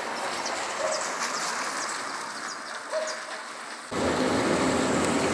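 Steady rain falling, with birds chirping over it. About four seconds in, the sound cuts abruptly to a louder, fuller rushing noise.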